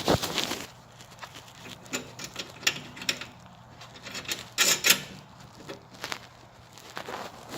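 Irregular clicks and knocks of hands handling the metal panel and its mounting hardware, with a cluster of clatter just at the start and another a little under five seconds in.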